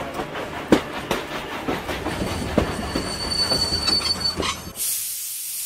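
Steam train sound effect: wheels knocking over the rails, with a high steady squeal through the middle. Near the end a loud hiss of steam sets in.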